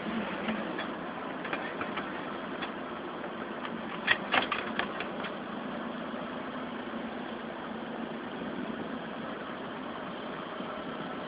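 A 15,000 psi high-pressure water jetting unit running steadily. A quick cluster of sharp clicks comes about four seconds in.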